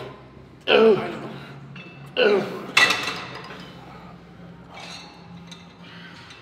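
A man's short grunts and forceful breaths from exertion, three bursts in the first half, with a sharp metallic clink about three seconds in, over a steady low hum.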